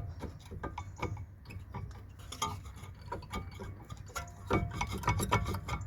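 BMW 1 Series front brake caliper being worked off the disc and bracket by hand: irregular metallic clicks and knocks over a steady low hum.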